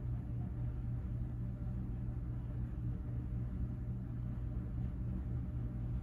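Leslie Locke Play It Again Sam ceiling fan running, its motor giving a steady low hum with a slight regular wavering.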